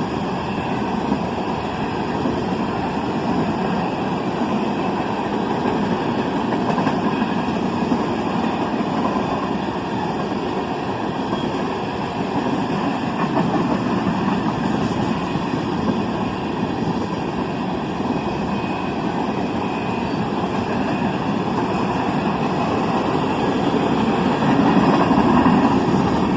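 Northbound empty ethanol freight train rolling past, a steady, even noise of its wheels on the rails, growing slightly louder near the end.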